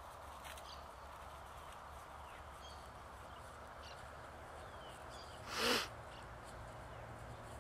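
Faint, steady drone of an Air Tractor 502 crop-duster's PT6A turboprop, flying low toward the listener. A few faint bird chirps sound over it, and a short, loud rushing noise comes just before six seconds in.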